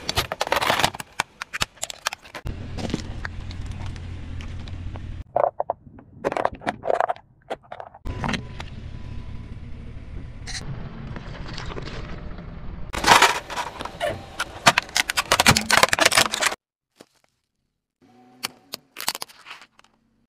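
A run of separate crushings under a car tyre: plastic and small objects cracking, snapping and scraping on pavement in clusters of sharp cracks, with a low rumble between some of them. The sound drops out briefly near the end before a few more small cracks.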